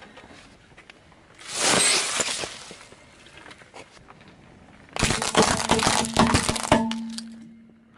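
A car tyre rolling over objects on asphalt and crushing them. There is a short crunch about a second and a half in as green peppers are flattened. About five seconds in comes a louder run of cracks lasting nearly two seconds as small plastic ladybug toys split under the tyre.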